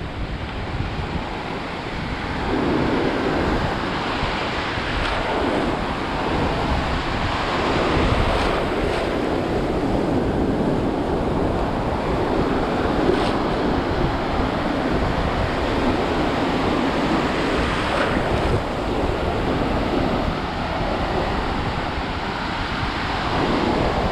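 Atlantic Ocean surf washing and breaking in steady, swelling rushes, with wind buffeting the microphone.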